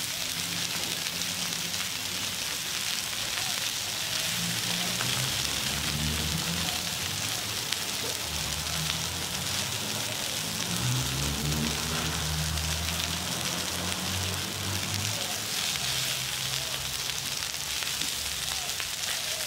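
Sausages and burger patties sizzling on a hot barbecue hotplate: a steady frying hiss, with a low hum coming and going underneath.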